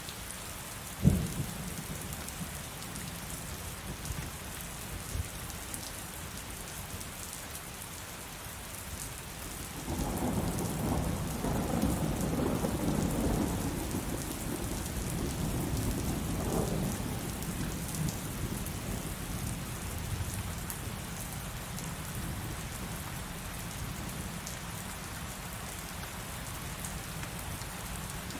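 Steady rain hissing throughout. There is a single sharp thump about a second in. A long roll of thunder begins about ten seconds in, builds for a few seconds and slowly fades away.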